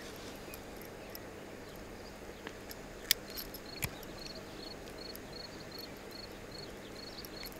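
An insect chirping steadily in short high-pitched chirps, about two a second, over faint outdoor ambience. About three seconds in come two sharp clicks, the first the loudest sound, as a metal fish hook-removal tool is handled.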